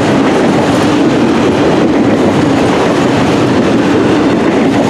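Freight train rolling by, a loud, steady rumble of wheels on rail with a steady hum under it.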